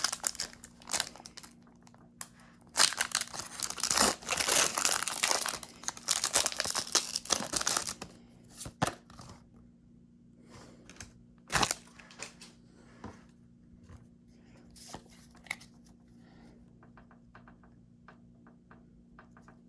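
A Pokémon booster pack's wrapper being torn open and crinkled, in dense bursts for the first several seconds. After that come sparse, quieter rustles and clicks as the cards are handled.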